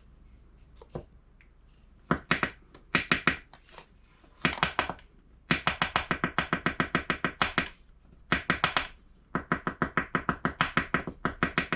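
Rapid tapping of reloaded shotgun shell hulls to settle granulated shot buffer down among the pellets. It comes in several bursts of sharp taps, about eight a second.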